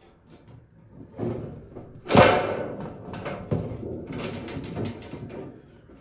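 Thin galvanized sheet metal being handled and pressed on a table: a loud metallic clatter about two seconds in, then rattling and crinkling of the flexing sheet with a few smaller knocks.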